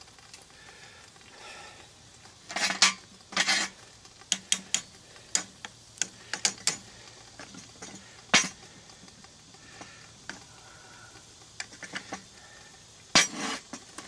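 Metal clanks and clinks as pliers grip and flip a cast-iron ingot mold and the aluminum ingots are knocked out of it. There are louder scraping clatters about three seconds in and again near the end, with sharp clinks scattered between.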